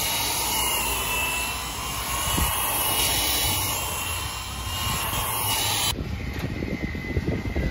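Milwaukee electric grinder with a sanding pad running at speed against a racing tire's rubber tread, grinding it down: a steady high whine over a loud hiss. About six seconds in it cuts off abruptly, giving way to quieter, uneven low rumbling.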